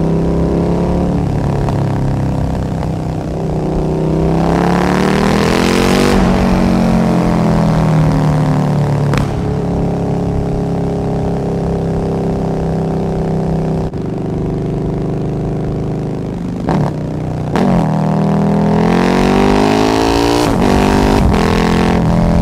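Motorcycle engine revved hard through the gears twice, its pitch climbing steeply then falling away, with a few sharp cracks in between, echoing off tunnel walls.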